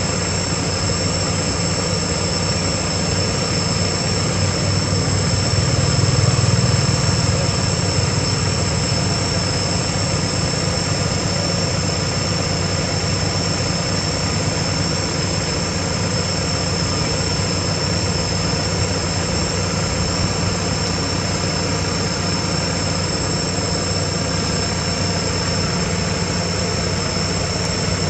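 Steady, unchanging background drone: an even hiss with two constant high-pitched whines over a low hum, swelling slightly about six seconds in.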